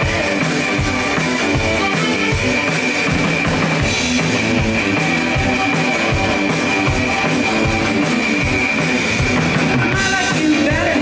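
Live rock band playing: drum kit keeping a steady, even beat under hollow-body electric guitar, with a thin high note held steadily over it.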